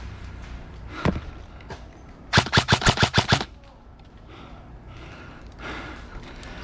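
Airsoft gunfire: a single shot, then about a second later a rapid burst of about ten shots.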